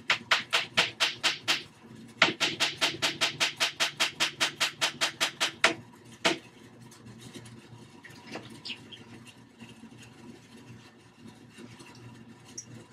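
Rapid hammer taps on a nail in a wooden 2x4, about six strikes a second: a run of about eight, a short pause, a longer run of about twenty, then one last strike.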